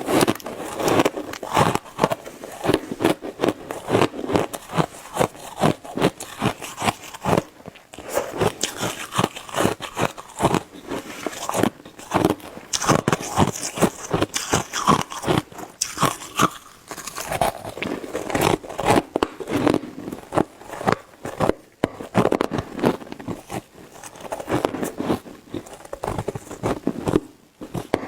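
Shaved ice being bitten and chewed: dense, irregular crunching that keeps going, broken by a few brief pauses.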